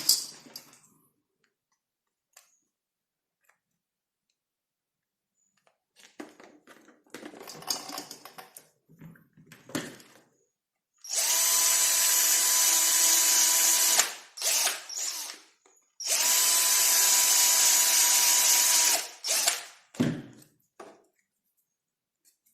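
Handheld electric drill run twice at a steady speed, about three seconds each time, with a steady whine. Both runs are preceded and followed by light handling clatter.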